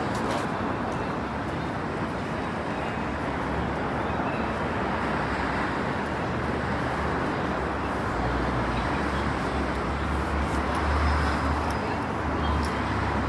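City street ambience of road traffic: a steady wash of traffic noise, with a deeper low rumble that comes in a little past halfway and stays.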